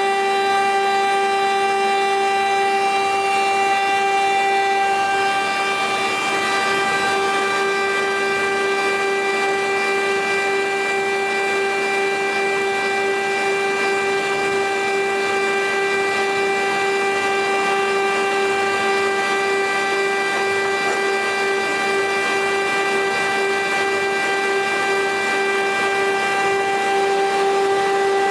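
Woodworking machines of a parquet-strip production line running, giving a steady, unbroken high whine.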